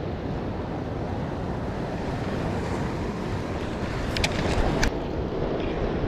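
Steady wind rushing over the microphone with surf washing against the jetty rocks, and a few short clicks about four to five seconds in.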